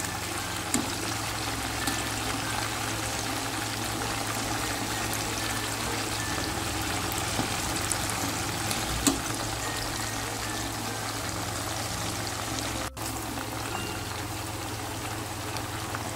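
Chicken pieces deep-frying in hot oil in a wok, a steady sizzle, with metal tongs clicking lightly against the pan a couple of times as the pieces are turned.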